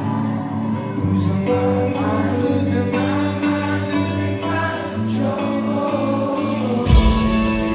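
Live rock band playing, with singing over sustained guitar and bass notes and regular cymbal hits. A heavy low drum hit stands out near the end.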